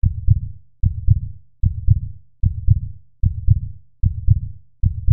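Heartbeat sound: a low double thump that repeats steadily, about every 0.8 seconds, seven beats in all.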